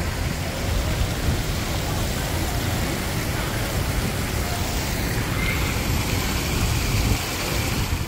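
Outdoor urban background sound: a steady wash of road traffic noise with an uneven low rumble and faint voices of passers-by.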